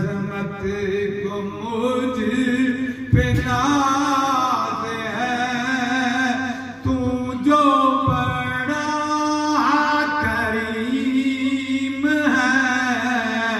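A man chanting a devotional poem in a long-held, melodic recitation, unaccompanied, amplified through a microphone and loudspeakers.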